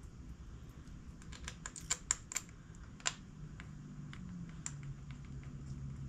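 A quick, irregular run of light clicks and taps, loudest about two and three seconds in, from metal carburetor and intake parts being handled as the carburetors of a 1975 Honda GL1000 Gold Wing are fitted by hand onto the intake manifold.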